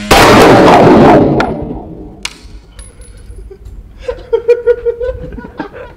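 A single gunshot, very loud and ringing out in the range for about a second and a half, followed by two light metallic clinks, typical of the ejected brass casing landing.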